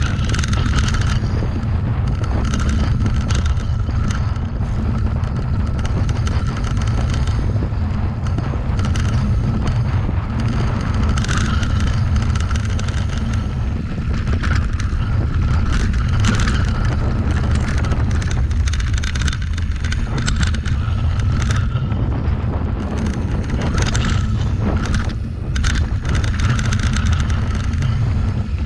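Mountain bike descending a dirt trail, heard from a camera on the rider: wind buffeting the microphone, with tyres running over dirt and gravel and the bike rattling over bumps.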